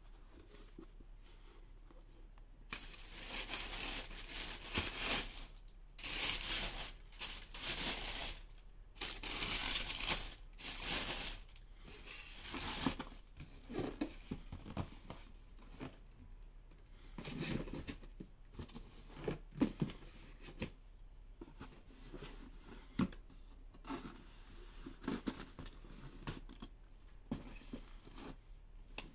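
Tissue paper rustling and crinkling in loud bursts as it is handled, followed by quieter handling of cardboard shoeboxes with scattered light knocks.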